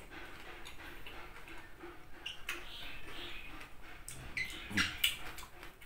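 Close-mic chewing of crunchy raw cucumber: irregular crunches and wet mouth clicks, loudest about five seconds in.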